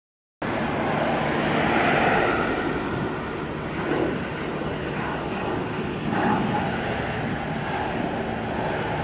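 Airbus A320neo's Pratt & Whitney PW1100G geared turbofans on final approach: a steady jet rush with a thin high whine wavering above it. The sound cuts in abruptly about half a second in.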